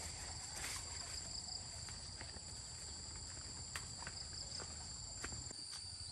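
Insects singing in a steady high-pitched chorus on two held pitches, with a few faint clicks and rustles.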